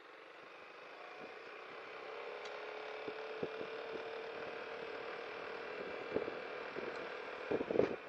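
Yamaha XMAX 300 scooter's single-cylinder engine drone while riding, rising a little in pitch and level over the first couple of seconds and then holding steady at cruise. A few short thumps come near the end.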